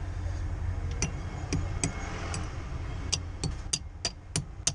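A run of sharp taps, about ten, coming faster in the second half at about three a second: a metal anchor sleeve being knocked into a drilled hole in a masonry wall without a hammer.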